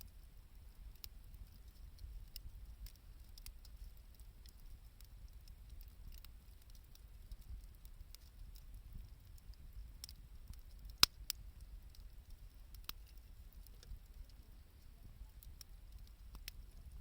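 Wood campfire crackling faintly, with scattered irregular pops of burning wood and one sharper, louder pop about eleven seconds in.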